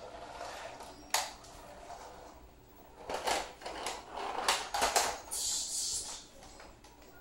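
Toy cars and a toy bus clacking and knocking against a hard tiled floor and each other as they are handled. There is one sharp knock about a second in, then a quick run of knocks a few seconds later and a brief rustling hiss near the end.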